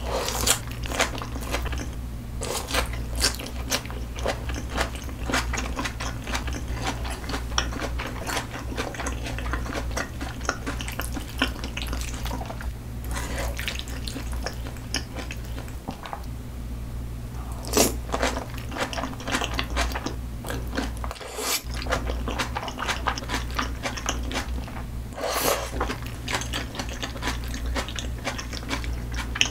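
Close-miked eating sounds of thick-cut raw salmon and thinly sliced onion in cream sauce being chewed: a dense run of wet mouth clicks and squelches with occasional crunches, and a few sharper strokes partway through. A steady low hum runs beneath.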